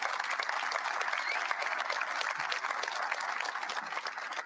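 Audience applauding, a dense steady patter of many hands clapping that begins to fade near the end.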